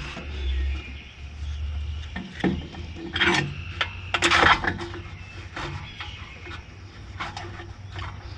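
Scattered knocks, clicks and scraping of parts being handled and worked into place by hand on the bulldozer, with a low rumble over the first couple of seconds.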